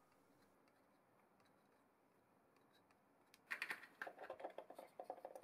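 Near silence, then about three and a half seconds in an irregular run of light clicks and taps as a small steel plate is picked up off a steel machine vise.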